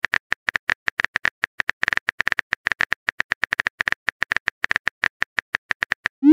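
Phone keyboard typing sound effect from a texting-story app: rapid, even clicks, about seven a second, one per letter as a text message is typed. The clicks stop just before the end, where a rising swoop of the message-send sound begins.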